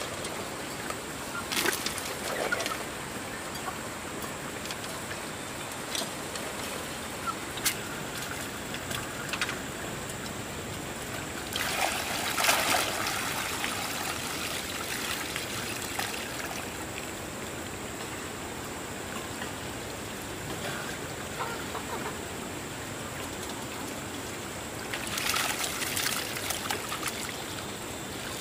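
Water trickling and flowing steadily, louder twice: about twelve seconds in and again near the end. A few faint clicks are scattered through it.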